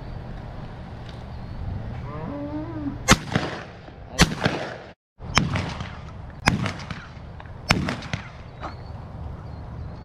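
Five shotgun shots, sharp blasts spaced about a second apart.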